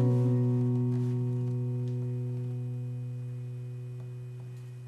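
Acoustic guitar's final strummed chord ringing out and slowly fading away, ending the song.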